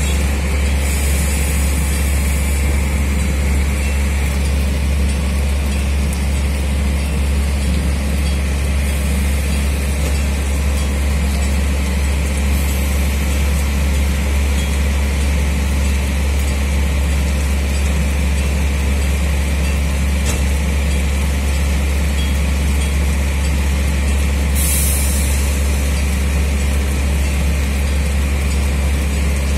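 OSE AEG diesel railcar idling steadily at a standstill, a constant low engine hum, with a short hiss of air near the end.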